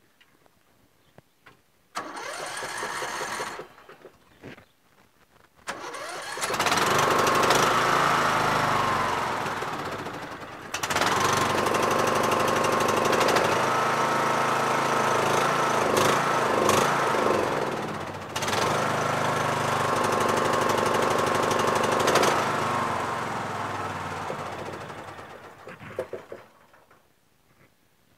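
A 20 hp Briggs & Stratton single-cylinder overhead-valve lawn tractor engine is cranked and catches about six seconds in, then runs steadily with a couple of brief dips. Near the end it winds down and stops.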